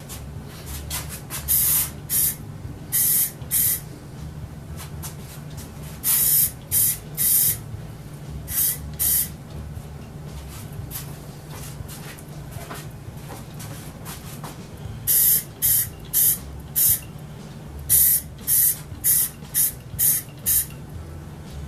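Aerosol spray-paint can fired through a clip-on trigger handle in short hissing bursts, each under a second, in clusters with pauses between, the longest run near the end. A low steady hum sits underneath.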